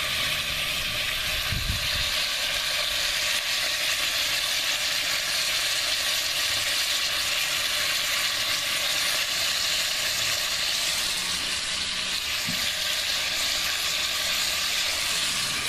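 Oxtail pieces frying in hot olive oil in a cast-iron potjie pot, a steady sizzle as the meat is browned.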